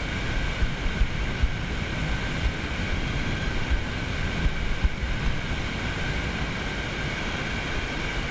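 Wind buffeting the microphone in uneven low gusts over small waves washing in over the shallow sand, with a faint steady high whine underneath.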